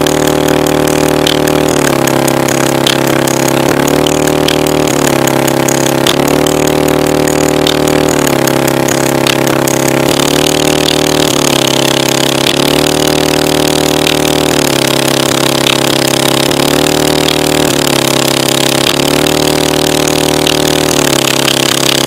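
The V8 engine of a 2007 Chevrolet Avalanche running loudly. Its pitch steps up and down every second or two as the throttle is worked.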